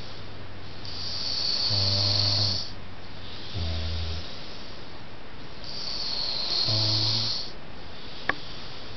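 A person snoring heavily in sleep: two long hissing breaths about five seconds apart, each with a low buzzing snore, and a shorter low snore between them. A single short click near the end.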